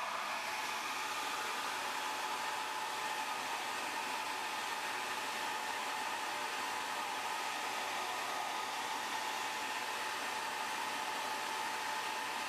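Handheld hair dryer running steadily, blowing hot air onto a phone's glass digitizer to soften its adhesive.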